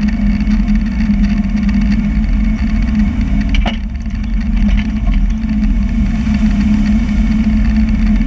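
Engine idling steadily, with one sharp pop about three and a half seconds in: the popping noise being recorded.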